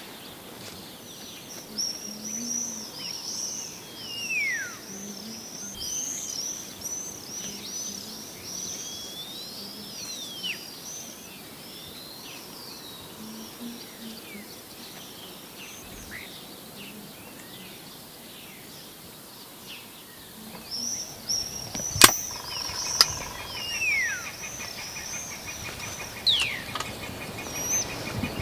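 Songbirds chirping and whistling in a morning chorus, many short calls and a few long descending whistles. A single sharp click cuts through late on.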